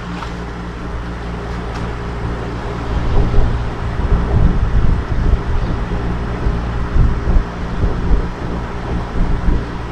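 A steady machine hum with several evenly spaced low tones, joined about three seconds in by uneven low rumbling gusts of wind on the microphone.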